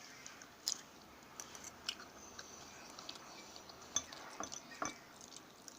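Cutlery clicking against a plate during a meal: a few faint, scattered clicks.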